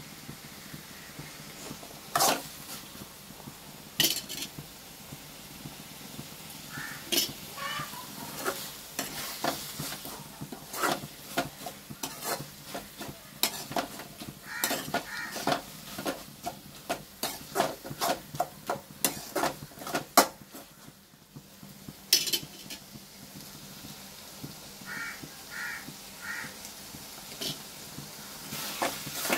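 A metal spoon stirring onion and tomato in a metal kadai, with many sharp clinks and scrapes of the spoon against the pan over a faint sizzle of frying.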